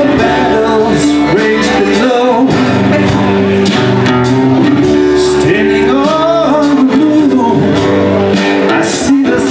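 Live rock band playing a song: acoustic and electric guitars, keyboard, saxophone and drums, with steady cymbal hits.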